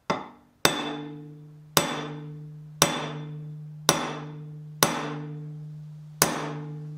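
Seven sharp metal strikes, roughly one a second, on a tubular steering-stem bearing driver. Each strike leaves a ringing hum that fades slowly. A new tapered roller steering head bearing is being driven down onto the steering stem of a 2022 Indian Chief's lower triple clamp.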